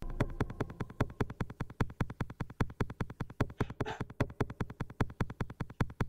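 Pulsing synthesizer music: even electronic throbs, about seven a second, over a faint held tone, with a brief hiss about four seconds in.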